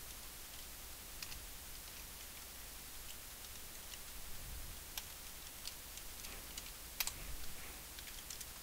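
Faint, scattered clicks of a computer keyboard and mouse over a steady low hiss, with one sharper click about seven seconds in.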